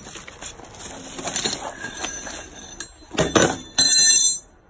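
Metal hand tools clinking and clattering as they are rummaged through. There is a knock a little over three seconds in, then a loud metallic ringing clatter near the end that cuts off suddenly.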